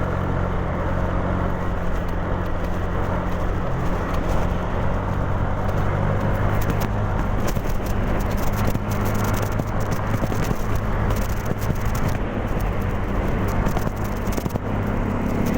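Honda Genio single-cylinder scooter riding along, its engine running steadily under a constant hiss of wind and road noise, with scattered light crackles.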